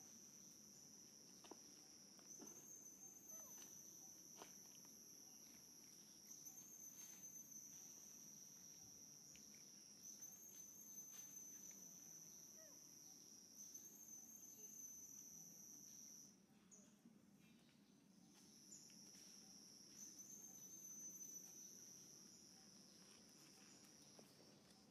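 Faint, steady high-pitched insect drone that swells anew every three to four seconds. It stops about 16 seconds in and starts again a couple of seconds later.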